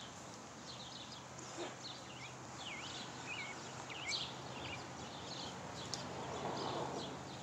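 Birds chirping outdoors: many short, high calls and quick swooping notes, over a faint steady low hum and background noise. A brief low swell of noise rises about six seconds in.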